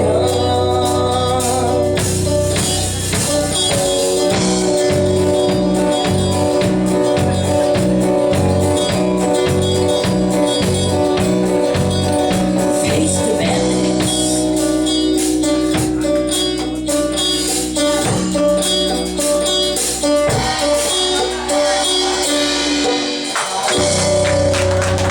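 A live country band playing the closing part of a song, with some singing. A pulsing bass rhythm runs through the first half, then gives way to long held chords.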